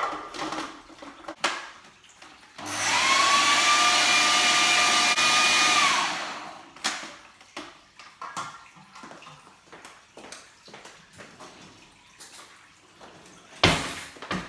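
Kenwood food processor motor spinning up, running for about three and a half seconds with a steady whine, and winding down, mixing a potato, egg and spice mixture. Clicks and knocks of handling come before and after, with a sharp knock near the end.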